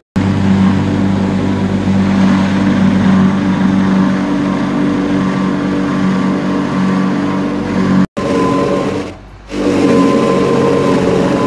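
Tyre retreading machine running steadily: a motor hum with the large tractor tyre spinning against the steel roller and the grinding noise of the rubber. The sound breaks off briefly about eight seconds in and drops lower for a moment a second later.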